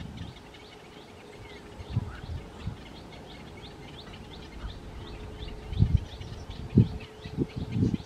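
Small birds chirping rapidly and continually, short high chirps several a second. Several loud low thumps come in the second half, and a faint steady hum runs under the end.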